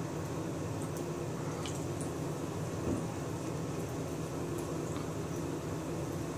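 Thin stream of tap water running steadily from a bathroom faucet into the sink, with a few faint ticks and splashes as a cat paws at and drinks from the stream.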